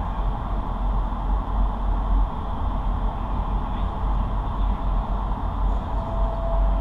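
Steady rush of air through a vertical indoor skydiving wind tunnel, heard inside the flight chamber, with a deep uneven rumble underneath.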